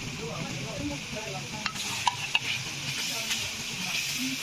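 Chicken pieces sizzling in hot oil in a metal pan while a wooden spatula stirs them through the spices. There are a few sharp clicks about two seconds in.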